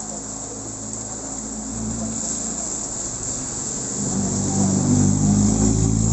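Steady rain hissing on a wet road, with a small pickup truck's engine growing louder about four seconds in as it drives past.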